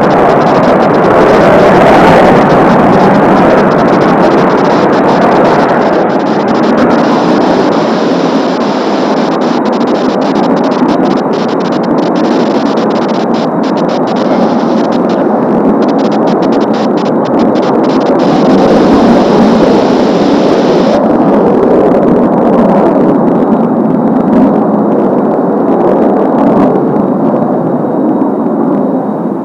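Steady jet noise of Blue Impulse's Kawasaki T-4 jet trainers, twin turbofans, flying over, with a thin high whine through the middle that drops away about two-thirds of the way in.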